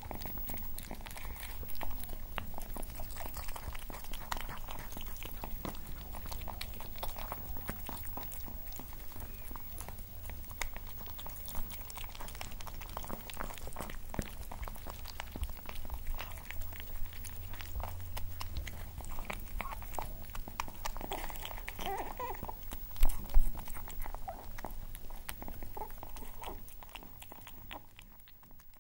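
Two cats eating cod, close up: a continuous run of wet chewing and smacking clicks, with two louder clicks about 23 seconds in. The sound fades out near the end.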